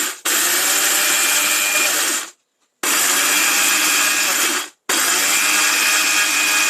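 Jaipan electric mixer grinder running in three pulses of about two seconds each, with brief stops between, grinding dry chickpea lentils (chana dal) into fine powder.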